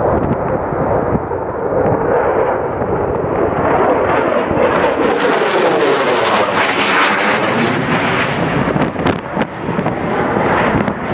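Eurofighter Typhoon's twin EJ200 turbofan engines, very loud as the jet flies past: a heavy rumbling jet noise that builds to its loudest around the middle, with a sweeping, swirling tone as it goes by, then eases a little near the end.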